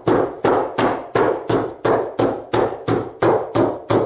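Hammer tacker being swung in a steady run of sharp strikes, about three a second, driving staples through carpet padding into the floor.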